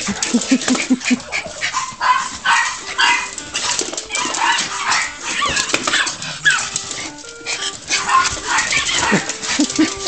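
Several miniature pinschers barking and yapping, barks overlapping one after another.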